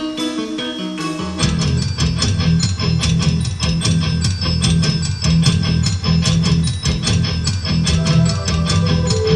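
Music for a Christmas light show. Soft keyboard notes give way, about a second and a half in, to a full-band section with guitar, bass and a steady beat.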